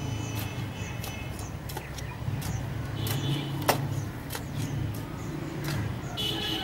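Small hand hoe chopping into dry, clumpy soil: a string of short scraping knocks, about one or two a second, over a steady low hum.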